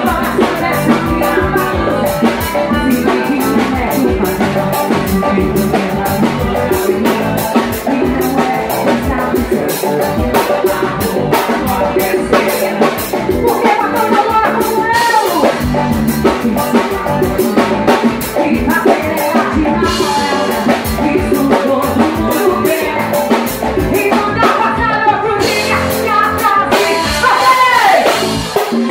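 A woman singing live into a microphone, backed by a band with accordion, keyboard and drum kit playing a steady beat.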